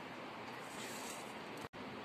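Faint, steady background hiss with no distinct event, dropping out for an instant about three-quarters of the way through.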